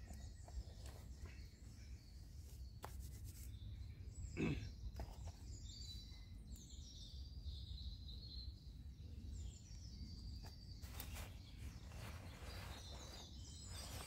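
Birds chirping faintly over a steady low rumble, with a few knocks from kit being handled, the loudest about halfway through.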